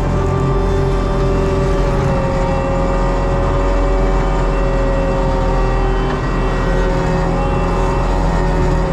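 ASV RT120 forestry track loader with a Fecon mulching head, its diesel engine and hydraulics running at steady high revs. The drone is loud and even, with a whine that wavers only slightly in pitch.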